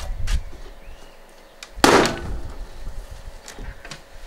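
A crowbar levering and knocking at a stripped washing machine's frame and drum parts. There is a knock just after the start, a single loud sharp crack about two seconds in that rings briefly, and a few lighter clicks near the end.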